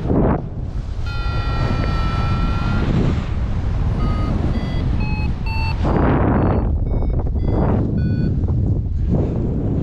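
Paragliding variometer beeping: short electronic beeps that change pitch, with one longer held tone about a second in, the audio signal of the glider's rate of climb or sink. Heavy wind noise on the microphone runs underneath.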